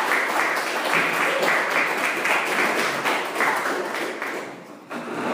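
Audience applauding. The clapping thins out about four and a half seconds in, picks up briefly, and cuts off suddenly.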